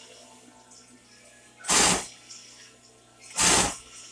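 Sewing machine stitching in two short bursts about a second and a half apart, quiet between them, as the fabric is pivoted to sew around a chiffon rose.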